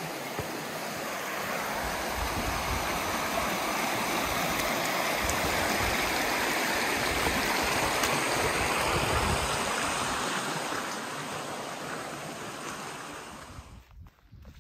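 Flat Laurel Creek's water rushing over rocks, a steady wash that is loudest in the middle, fades toward the end and drops away suddenly just before the end.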